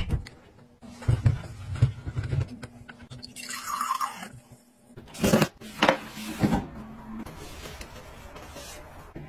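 Refrigerator door opening with a few knocks, then a drink dispenser's tap pouring liquid into a glass for about a second, followed by three sharp clicks or knocks and a steady low hum.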